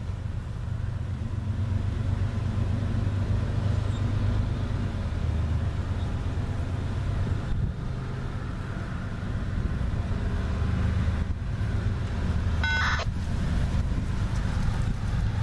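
Low, steady rumble of an approaching Florida East Coast Railway train's diesel locomotives, growing slightly, with a short high beep about thirteen seconds in.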